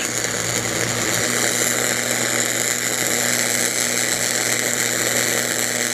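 Flux-cored arc welding: the arc crackles steadily as a fill pass is laid over the previous bead in a V-groove on thick steel plate, with a low steady hum under it.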